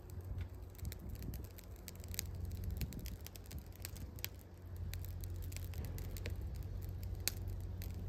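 Fatwood fire burning in a small perforated metal fire can, crackling with sharp, irregular pops over a low, steady rumble.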